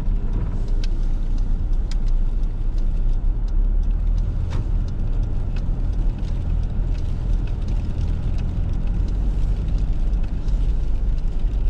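Car driving on a snowy road, heard from inside the cabin: a steady low rumble of engine and tyres with faint, scattered clicks.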